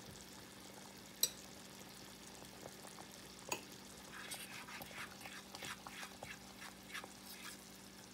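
Thick cornstarch gravy boiling in a saucepan, its bubbles popping in soft, irregular blips that come thicker from about four seconds in. Two sharp clicks stand out, about a second in and at about three and a half seconds, over a low steady hum.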